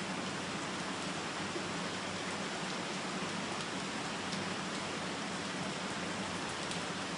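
Monsoon rain falling steadily on leaves, an even hiss with an occasional faint tick of a single drop.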